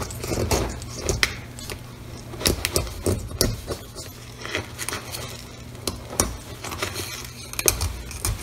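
A bent metal blade scraping cured epoxy off the glued seam of a ceramic piece: irregular short scrapes and clicks of metal on glazed ceramic, over a steady low hum.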